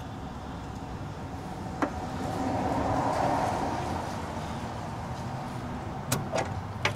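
Brief hiss of R134a refrigerant escaping as the brass valve core replacement tool is unscrewed from the AC service port after a new Schrader valve core is fitted. The hiss swells and fades over about two seconds, with light metallic clicks of the tool about two seconds in and near the end, over a steady low rumble.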